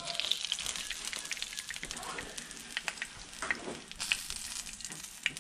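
Breadcrumb-coated Spanish mackerel nuggets sizzling and crackling in shallow hot oil in a frying pan, with a few sharper pops and clicks standing out through it.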